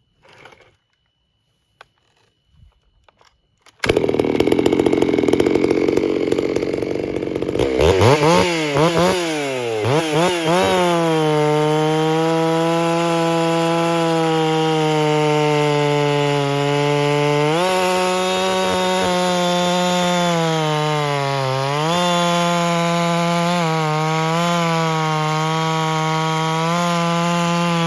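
Ported and machined G660 two-stroke chainsaw, still breaking in, starts running about four seconds in, is blipped up and down a few times, then is held at full throttle in a test cut. The engine note stays high and steady, sagging briefly twice as the chain loads up in the wood.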